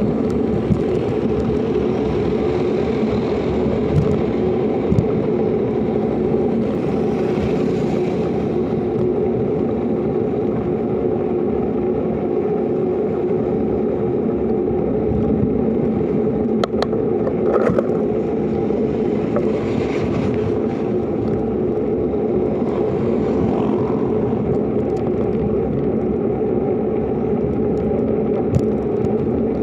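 Motorcycle running at a steady cruising speed with road and wind noise, plus a few brief knocks from the ride.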